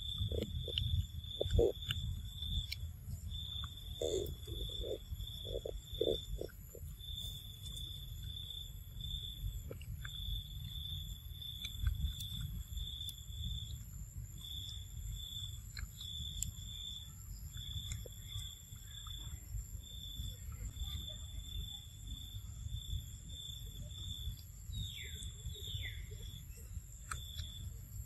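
An insect chirps in a steady, even rhythm, about three high chirps a second, over a low rumble. A few short low calls come in the first seconds, and two falling squeaks near the end.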